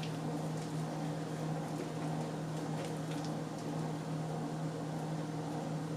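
A steady low hum, with a few faint soft squelches of slime being kneaded by hand.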